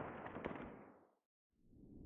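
The dying tail of an explosion sound effect, fading away within the first second with a small crackle about half a second in. Near the end the next explosion effect begins to swell.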